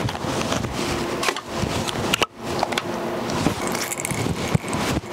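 Scraping and light clicking of one-to-one two-part epoxy being stirred in a small cup, over a steady hiss.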